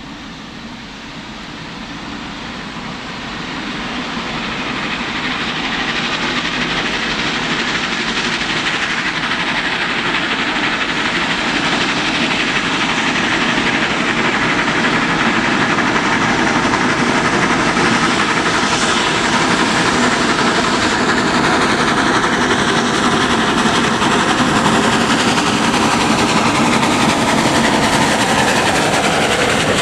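Two LMS 4-6-0 steam locomotives, Royal Scot 46100 and Black Five 45231, double-heading a passenger train. Their exhaust and the rolling of the train grow louder over the first several seconds as they approach, then hold steady as they pass.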